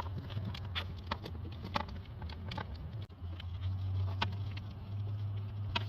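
Scattered light clicks and handling noises of plastic coolant-line quick-connect fittings being worked loose by hand, over a steady low hum.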